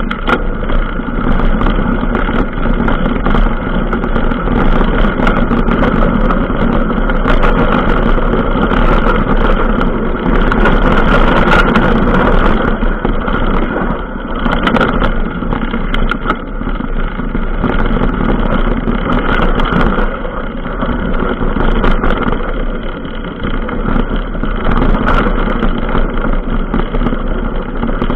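Continuous riding noise from a camera mounted on a bike moving along a rough dirt trail: a steady loud rumble with wind on the microphone and scattered knocks and rattles from bumps.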